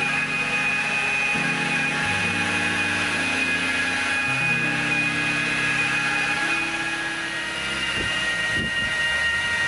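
Electric rotary polisher running steadily on a car's paint with a high whine, over background music with a stepping bass line.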